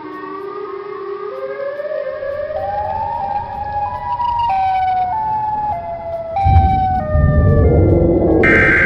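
Siren sound effect: a pitched wail that climbs in steps for about four seconds and then steps back down. A loud rumbling, crackling noise comes in about six and a half seconds in, and a brief harsh static burst sounds near the end.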